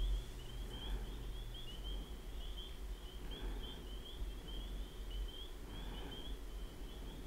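Faint, steady high-pitched chirping, two or three chirps a second, over a low steady hum.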